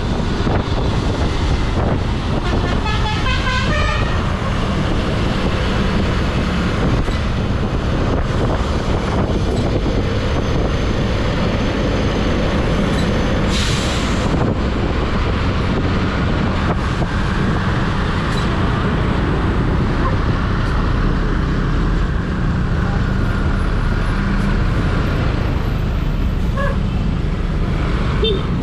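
Bus running on the road with a steady engine and road rumble. About three seconds in, a Basuri telolet horn plays a short run of quick musical notes. Near the middle comes a brief hiss.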